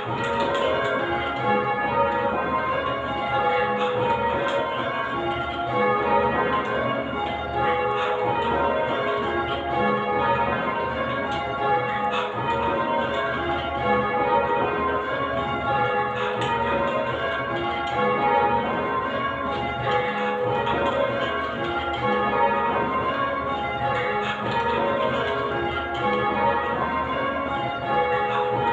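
Ring of eight church bells, a Whitechapel-cast set with a 10 cwt tenor in A flat, change ringing. They are ringing call changes, each bell striking in turn in a steady, unbroken rhythm, with the notes overlapping as they ring on.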